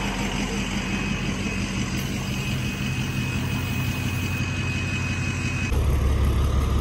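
International flatbed tow truck's engine idling steadily with a low hum. About six seconds in, the low rumble becomes louder and deeper.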